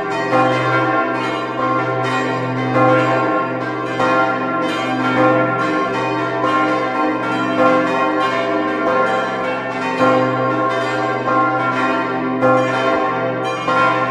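Several church bells of the Visp bell tower ringing together in a continuous full peal, strikes following one another in overlapping succession over a deep, sustained low bell tone.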